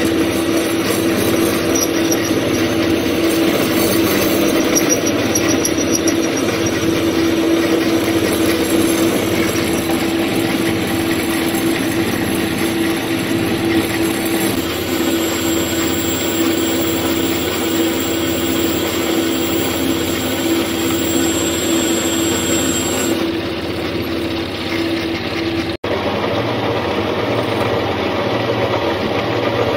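Homemade metal lathe running steadily with a steady motor hum and a high whine while a turning tool cuts a large metal workpiece. Near the end the sound drops out for an instant, and the lathe runs on with a slightly different tone.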